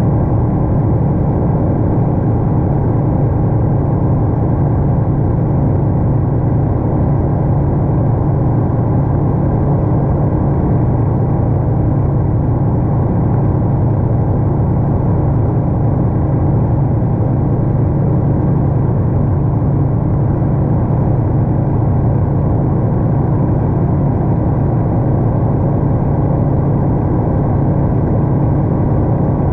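Single-engine light aircraft's engine and propeller running steadily at constant pitch, heard from inside the cockpit.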